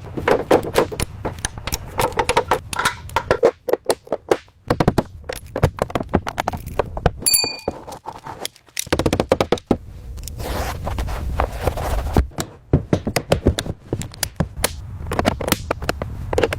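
Irregular knocks, taps and scraping, with a short bright ring about seven seconds in.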